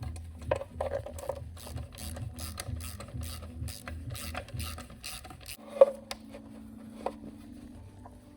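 Ratchet wrench being worked, its pawl clicking in a steady run of about three to four clicks a second. It stops after about five and a half seconds, followed by a single knock.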